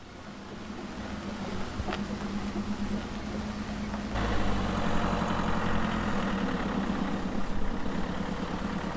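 Camper van engines running, then a van pulling away across sandy ground: about four seconds in the engine gets louder, with a low rumble and tyre noise.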